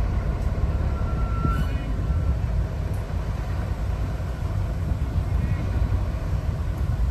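Heritage diesel locomotive engine running, a steady low rumble, with faint voices of people on the platform.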